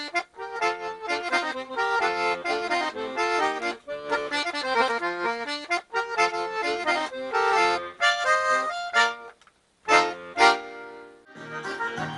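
Accordion playing an instrumental passage of quick melody notes over chords. The playing breaks off briefly about nine seconds in, then two short loud chords sound before it goes on more softly.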